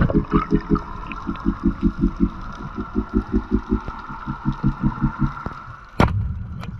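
Band-powered speargun fired underwater: one loud, sharp knock about six seconds in as the spear is released. Before it there is a rhythmic low pulsing in runs of quick beats, about five a second, with short gaps between runs.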